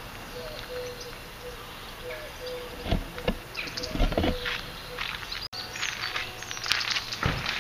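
Outdoor garden ambience: faint bird chirps over a low steady background, with dull thumps about three and four seconds in and again near the end.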